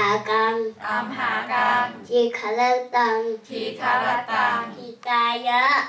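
A young boy's voice chanting Buddhist prayers in a sing-song recitation, in short melodic phrases separated by brief breaths.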